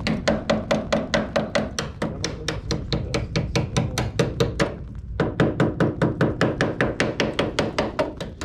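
A hand tool worked against the rusted sheet-metal edge of a van's wheel arch in quick, even strokes, about five a second, with a short break about five seconds in.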